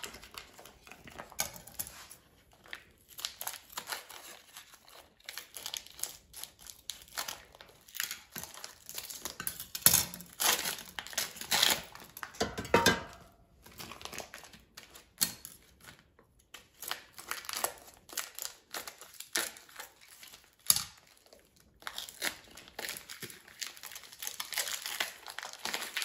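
Thin plastic wrap on frozen fish fillets crinkling and tearing as it is pulled open by hand, an irregular run of crackling rustles with a few sharper, louder crackles along the way.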